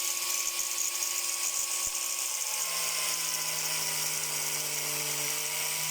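Electric angle grinder running at speed with a steady high whine. About two and a half seconds in, a lower hum joins and the pitch sags slightly, as when the disc meets the frozen chicken polony.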